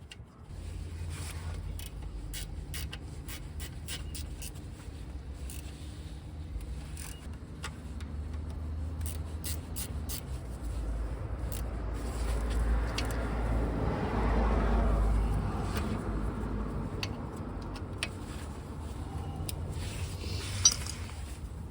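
Scattered metallic clicks and scrapes of hand tools working at a brake caliper, over a steady low vehicle hum; a vehicle swells up and fades away around the middle.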